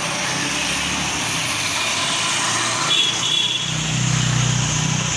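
Street traffic noise; about three and a half seconds in, a motorcycle engine comes in close and keeps running steadily.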